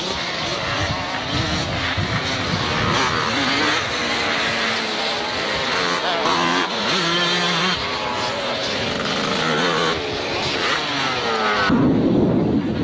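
Several motocross bikes' engines revving hard as they race past, their pitch repeatedly climbing and dropping as the riders accelerate and shift. Near the end the sound cuts abruptly to a duller rushing noise.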